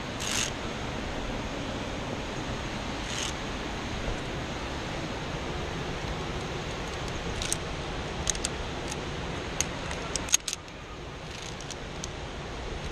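Via ferrata carabiners clinking against each other and the steel cable, a run of light metallic clicks from about halfway to near the end, the loudest just after ten seconds. A steady rush of noise lies underneath.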